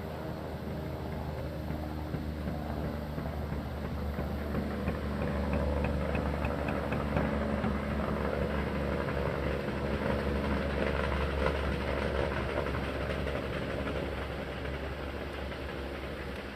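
A machine motor or pump running steadily with a low hum. It grows louder toward the middle and eases off near the end.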